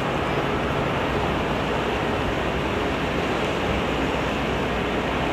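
The ferry Kuroshio Maru manoeuvring close by: a steady hum of its engines under a rush of churning water, mixed with wind.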